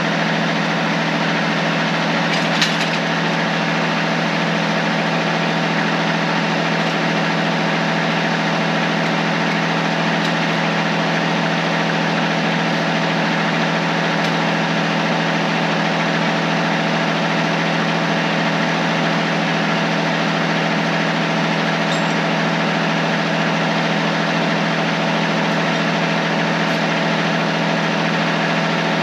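Kubota tractor's diesel engine running at a steady, unchanging speed while hauling a load of firewood logs, with a faint knock about two and a half seconds in.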